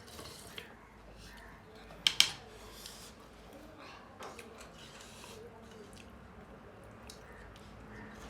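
Eating sounds close to the microphone: soft mouth and chewing noises with scattered small clicks, and a sharp clatter of a few quick clicks about two seconds in, the loudest moment, like a utensil striking a plate.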